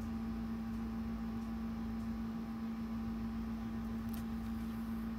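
Steady background hum with faint room noise, and one faint tick about four seconds in.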